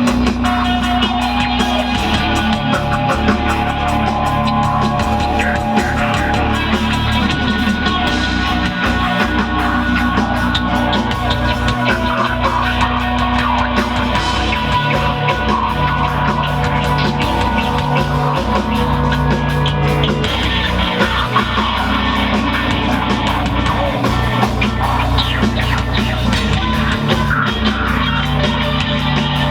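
Live heavy rock band playing an instrumental passage: distorted electric guitars, bass and drum kit.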